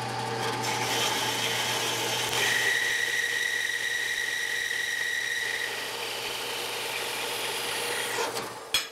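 Horizontal metal-cutting band saw running and sawing through a bar of 1095 high-carbon spring steel: a steady motor hum under the rasp of the blade, with a ringing note that rises out of the cut for a few seconds midway. It stops with a sharp click near the end.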